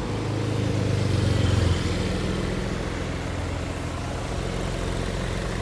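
Low engine hum of cars moving slowly in city traffic, heard from inside a car. It swells for about the first second and a half, then drops back to a steady hum.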